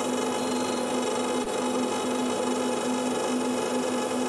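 Steady electrical hum at one mid pitch with a fainter overtone, from the car-amplifier test bench running two amplifiers near full power with about 430 amps flowing through the power wire.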